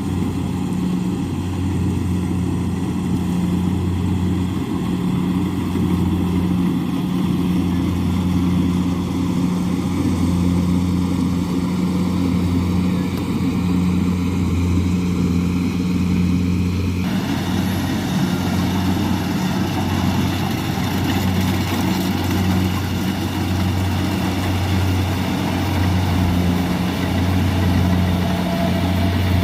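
Kubota rice combine harvester's diesel engine running steadily with a deep, even hum. About seventeen seconds in, the sound suddenly turns brighter, with more higher-pitched machine noise on top.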